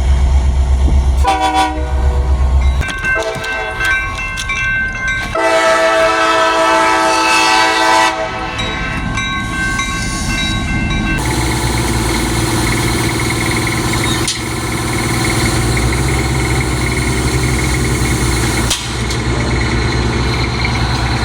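Diesel locomotive horn sounding several long blasts over the first ten seconds or so, the loudest and longest about five to eight seconds in, then the locomotive's diesel engine running steadily as the train moves.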